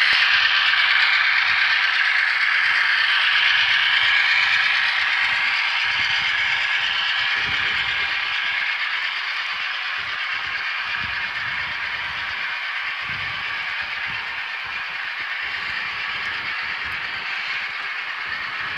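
HO scale model freight train rolling past: the locomotives' motors whir and the wheels rattle steadily on the rails. It is loudest as the locomotives go by, then fades slowly as the string of freight cars follows.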